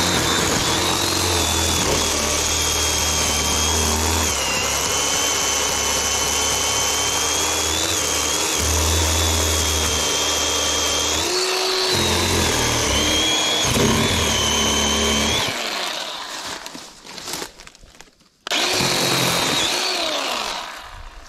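Chainsaw running at high revs while cutting brush. Its high whine dips in pitch a few times, then it drops away about fifteen seconds in, and after a short pause it revs again for a couple of seconds before dying down near the end.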